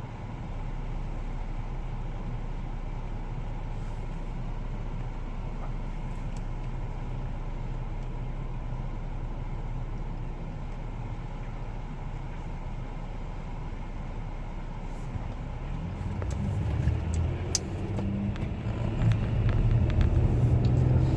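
Car interior road noise while driving: a steady low rumble of engine and tyres, growing louder about sixteen seconds in, with a few light clicks near the end.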